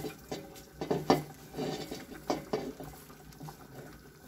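Handfuls of sliced onion being dropped into a metal pot of chicken, with a series of short knocks and clinks of hand and bowl against the pot.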